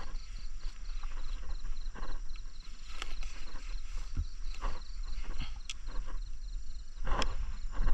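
Sharp clicks and snaps of pliers and a fibre-optic drop cable being handled, the strongest near the end, over a steady low rumble. A rapid high ticking call repeats about five times a second through the first part.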